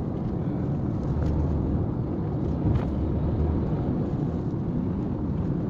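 Steady low rumble of road and engine noise heard inside a moving car's cabin, with a faint knock or two.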